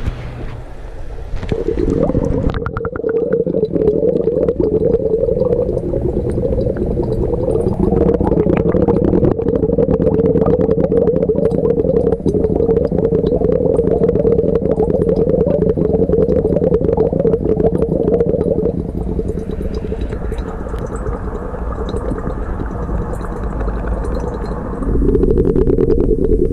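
Aquarium equipment running: water bubbling and gurgling over a steady pump hum. It drops in level about two-thirds of the way through and rises again near the end.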